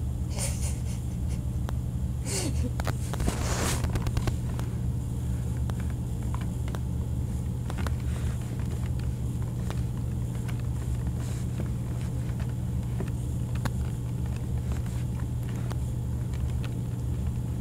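Steady low hum with faint scattered taps and clicks from fingers typing on a tablet's touchscreen keyboard, and a few short rustles of the tablet being handled in the first few seconds.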